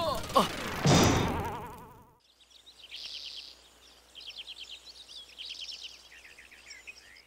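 A short cartoon sound effect ending in a wavering tone and fading out, then birdsong: groups of short, high, rapid chirping trills, for a forest background.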